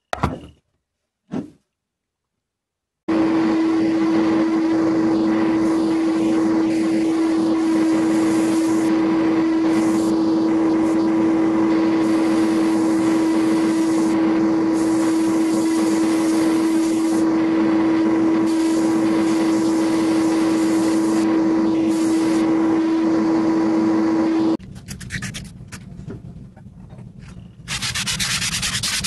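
Sandblasting a long metal part of an antique plow plane in a blast cabinet: a loud, steady hiss of air and grit over a constant hum, starting about three seconds in after a few brief handling knocks and cutting off suddenly about 24 seconds in. Near the end the metal part is rubbed back and forth by hand on an abrasive, a steady sanding scrape.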